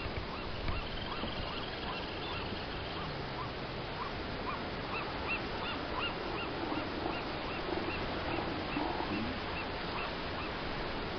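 Young northern elephant seals calling on a crowded haul-out beach: short, evenly repeated calls all through, with lower, drawn-out calls from about six to nine seconds in, over a steady background hiss.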